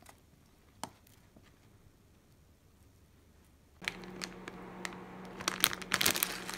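Plastic instant-ramen packet crinkling and crackling as it is handled and shaken, starting a little past halfway and loudest near the end, over a steady low hum. Before that it is quiet apart from one sharp click.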